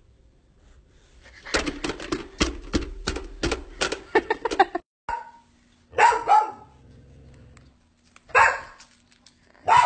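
A rapid run of rattling clicks over a low hum for about three seconds, then a dog barks twice, about two seconds apart.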